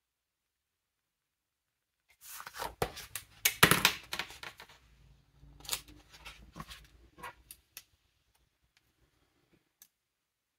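Paper rustling and handling as sticker sheets are shuffled and moved over a desk, with sharp clicks and taps mixed in; the rustling is densest and loudest about three to four seconds in, then thins to a few scattered taps.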